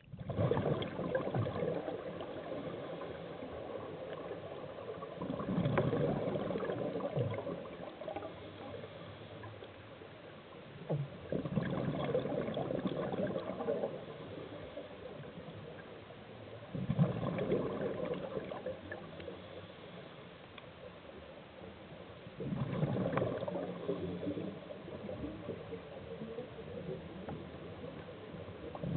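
Scuba diver's breathing heard underwater through the camera housing: exhaled regulator bubbles gurgle in a burst of two to three seconds about every six seconds, with quieter stretches between.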